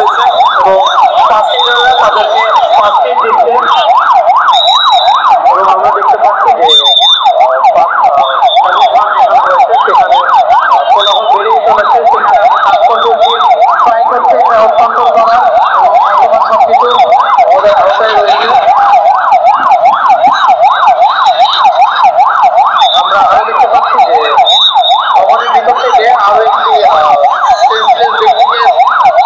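Ambulance siren on a fast yelp, its pitch sweeping up and down about three times a second. It is loud and unbroken except for a brief dip about seven seconds in.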